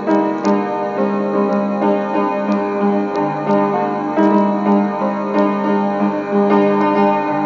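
Piano playing an instrumental passage of sustained chords and a steady run of notes, with no singing.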